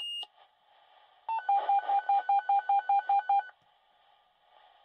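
Fire dispatch radio alert tones: a short high beep at the start, then, a little over a second in, a rapid string of about a dozen identical beeps, about six a second, heard over the radio with faint hiss between.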